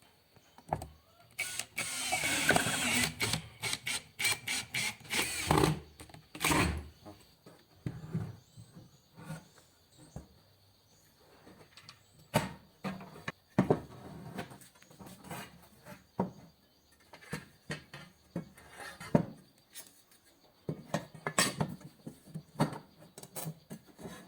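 Workshop handling sounds around a hand tool: a burst of scraping about a second and a half in, then irregular knocks and clicks. No motor is running.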